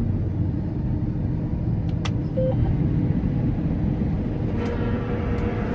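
John Deere S790 combine running steadily under load while harvesting peas, heard from inside the cab. A single sharp click about two seconds in, followed by a short beep.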